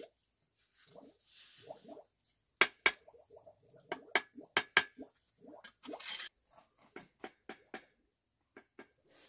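Steel mason's trowel scraping mortar and tapping bricks into place on a brick wall, with a quick run of sharp clinks and knocks in the middle.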